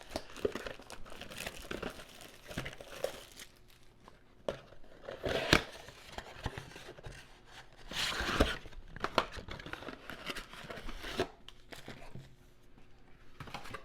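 Plastic wrapping being torn and crinkled off a box of trading cards, with irregular rustling and a few louder rips, the loudest about five and a half and eight seconds in.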